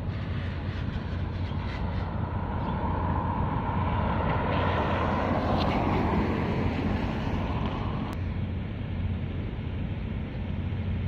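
Steady low drone of ship engines, with wind rushing on the microphone. A rushing noise swells from about two seconds in and cuts off suddenly around eight seconds.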